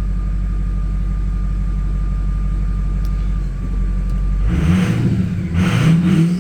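Ford 6.0L Power Stroke V8 turbo diesel idling with a steady high whine over it, just after a slow, hard start. About four and a half seconds in the throttle is blipped twice, the engine pitch rising and falling each time with a rush of air.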